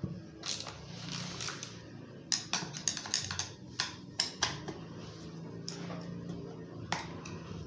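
Irregular light clicks and taps from a Husqvarna 137 chainsaw's chain, bar and tensioner being worked by hand while the chain tension is adjusted, with the bar nuts loosened. The clicks come in a quick scatter through the middle, over a faint steady low hum.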